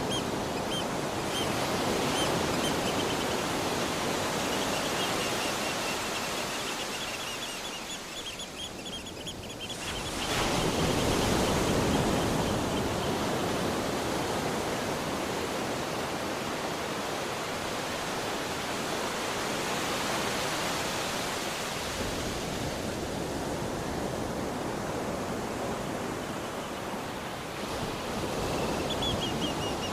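Ocean waves washing on a beach in a steady rush. One swell builds about ten seconds in, after a brief lull. A bird gives quick runs of repeated high calls early on and again near the end.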